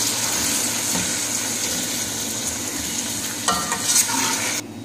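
Raw minced beef sizzling in hot oil in an aluminium pot while a metal spoon stirs and breaks it up, with a couple of sharp spoon clinks against the pot near the end. The sizzle cuts off suddenly just before the end.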